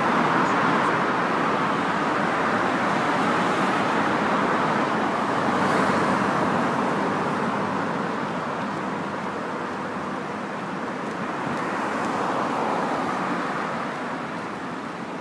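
Steady road traffic noise, a rush of passing cars that swells and fades slowly a few times.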